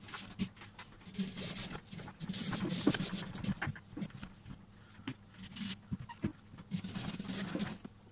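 Hand pruning saw cutting through a wild olive branch: repeated rasping back-and-forth strokes in uneven bouts with short pauses.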